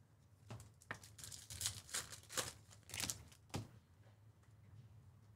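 Bowman Chrome baseball cards sliding against one another as a stack is flipped through by hand: a quick run of about eight short, dry swishes over some three seconds.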